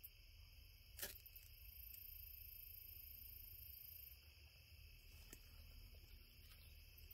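Faint, steady chirring of night insects, with one sharp scrape of a ferro rod being struck to light a fire starter about a second in.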